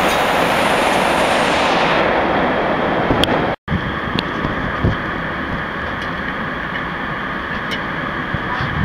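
Steady rushing roar of a jet airliner cabin in flight. It breaks off for an instant about three and a half seconds in and resumes a little quieter and duller.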